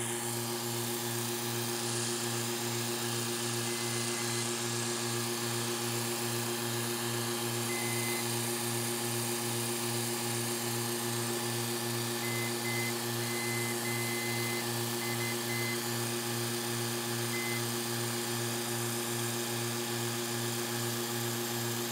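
Freshly rebuilt rotary vane compressor pump and its electric motor running with a steady hum. The motor is in good shape.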